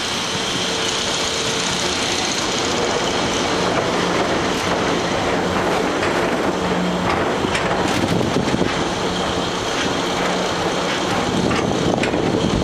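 An amusement-ride vehicle moving steadily along its track, a continuous rolling rumble with a few light clicks.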